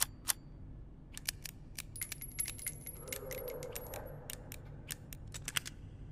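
Revolver sound effect: a run of about twenty small, sharp metallic clicks and clinks over some four seconds, with a thin high ring partway through.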